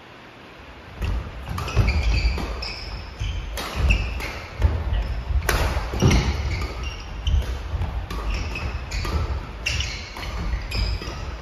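Badminton doubles rally starting about a second in: repeated sharp smacks of rackets hitting the shuttlecock, with shoes squeaking and feet thudding on the wooden court as the players move.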